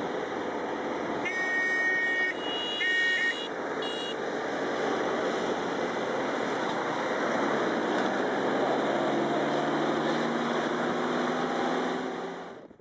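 Chander gari (hill-country jeep) horn honking twice, about a second in and again near three seconds, with a short third toot near four seconds. Under it runs the steady road and engine noise of the moving vehicle, the engine hum rising a little from about eight seconds in.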